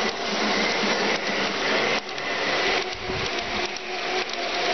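Model train running along the layout's track, its electric motor whirring steadily, with a few faint clicks.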